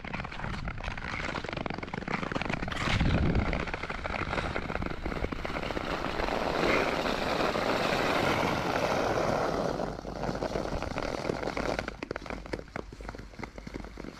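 Nordic skate blades gliding over natural ice, a steady scraping rush, with a loud low surge about three seconds in. Near the end it grows quieter and breaks into crackling ticks as the blades cross frosty ice.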